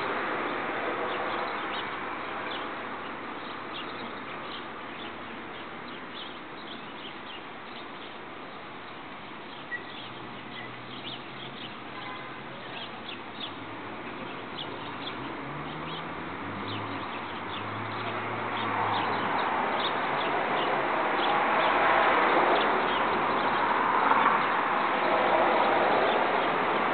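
Outdoor ambience: small birds chirping in the background over a steady rushing noise, which grows louder in the last third. A faint low hum comes in during the middle.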